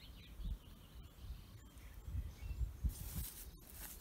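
Quiet outdoor background: uneven low rumbling on the microphone, with a few faint bird chirps and a brief rustle about three seconds in.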